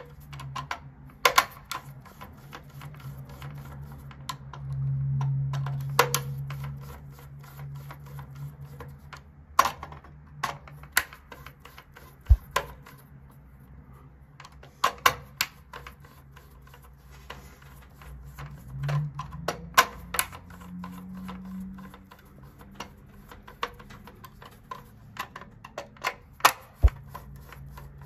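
Small screwdriver clicking and tapping on the screw terminals of an alarm control panel as wires are fastened: sharp, irregular clicks, some in quick runs of several, over a low background hum.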